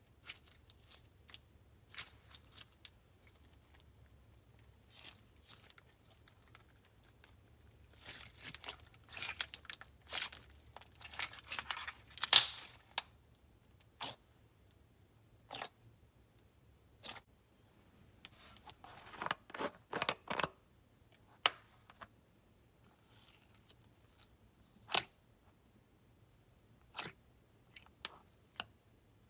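Slime with foam beads being squished and poked by hand: scattered short clicks and pops, with two denser runs, one about a third of the way in and one about two-thirds in.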